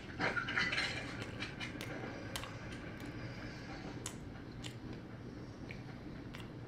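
Close-up eating sounds: a bite into fried chicken with a crackly burst in the first second, then closed-mouth chewing with scattered soft clicks. A steady low hum runs underneath.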